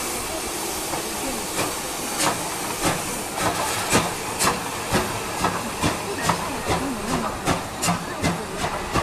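Steam tank locomotive dressed as Thomas the Tank Engine (Oigawa Railway's C11) chuffing as it pulls away, its exhaust beats quickening from about one and a half to about two and a half a second over a steady hiss of steam.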